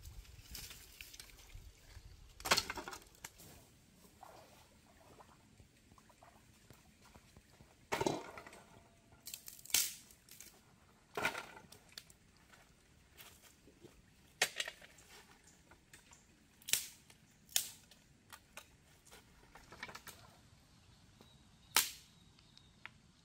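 A series of sharp knocks at irregular intervals, about eight loud ones spread over some twenty seconds with fainter taps between them.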